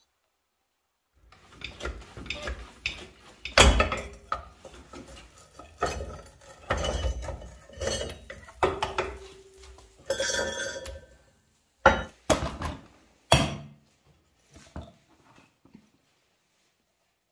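Metal parts clanking, clinking and knocking as an aluminium scooter crankcase half and its crankshaft are handled on a hydraulic press, with a few sharp knocks and a brief metallic ring.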